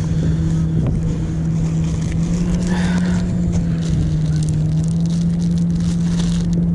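Steady engine drone holding one pitch, over low wind rumble on the microphone, with light crinkling of a plastic tackle bag being handled.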